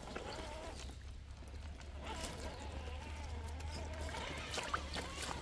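RC crawler's Hobbywing QuicRun Fusion SE 1800kV brushless motor whining as it drives through a shallow creek, the whine rising and falling in pitch with the throttle, with water trickling and splashing around the tyres. The whine stops for about a second and a half near the start, then comes back.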